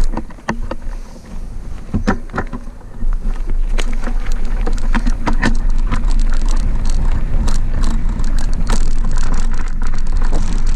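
Mountain bike rolling downhill over a rocky dirt road: wind rumbling on the microphone, with tyres crunching on loose stones and the bike rattling and knocking over bumps. It gets louder about three seconds in as speed builds.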